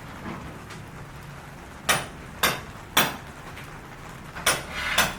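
Hammer blows on a building site: three sharp, ringing strikes about half a second apart, then a pause and two more near the end.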